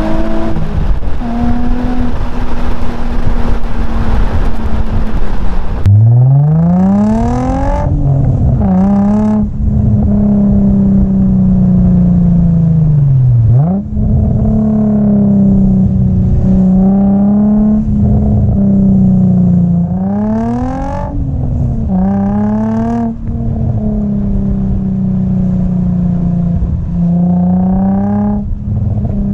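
Nissan 350Z's 3.5-litre V6 through a straight-through 3-inch catback with resonator delete and twin PowerFlow backboxes, driven hard. The revs climb and drop again and again as it changes up through the gears, and about halfway they fall away and jump sharply on a downshift. For the first six seconds it is heard from inside the cabin, after that close up at the exhaust tips.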